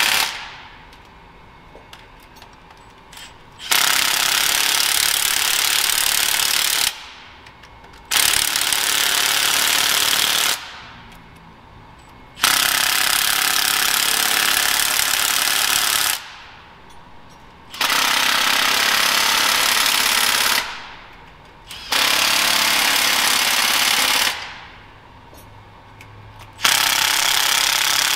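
A 3/8-inch impact wrench on its lowest setting hammering in repeated bursts of two to four seconds with short pauses between, snugging down the exhaust manifold bolts on a Cat 3406E engine.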